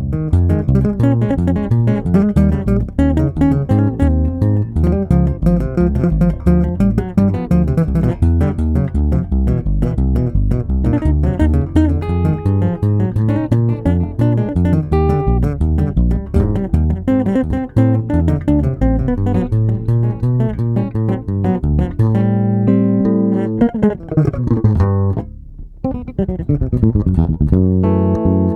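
Electric bass guitar played solo through a TC Electronic SpectraComp compressor pedal: a fast run of notes with sharp percussive attacks, held at an even level. Near the end come a few held notes and a slide down in pitch, then the quick notes pick up again.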